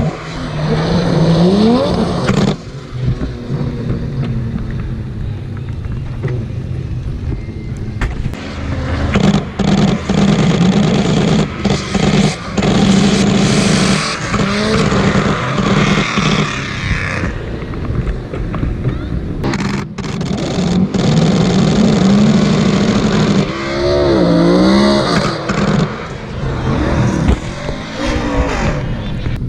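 Drift cars sliding through a Formula Drift run, their engines revving up and down hard at high rpm over a hiss of spinning, smoking tyres.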